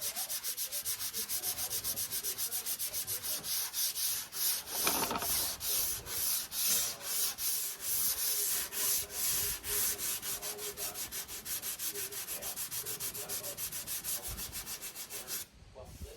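320-grit sandpaper rubbed by hand back and forth over cured Bondo body filler on a pickup bedside panel, in quick even strokes about four a second, to take out the coarser 80-grit scratches. The sanding stops shortly before the end.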